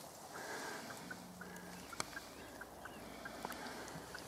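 Wild turkey calling faintly: a scattering of short, sharp high notes. A single sharp click about two seconds in.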